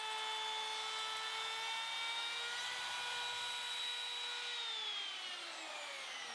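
Handheld router with a fluted roundover bit running free with a high whine, then winding down, its pitch falling steadily over the last couple of seconds.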